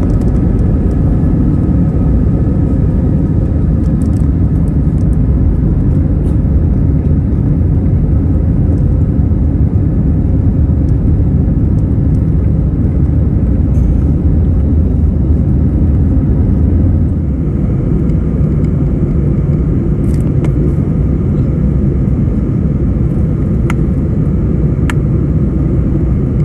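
Jet airliner's engines heard from inside the cabin on takeoff and climb: a loud, steady rumble with a faint whine over it. A little past halfway it drops slightly in level and changes character.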